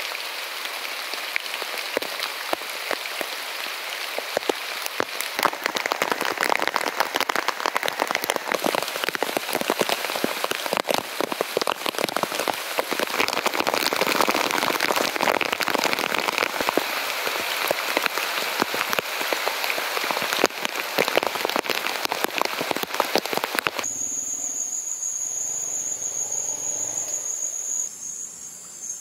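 Heavy rain falling, a dense steady hiss full of sharp individual drop impacts. About four seconds before the end the rain sound cuts off suddenly, leaving a steady high-pitched tone over a faint low background.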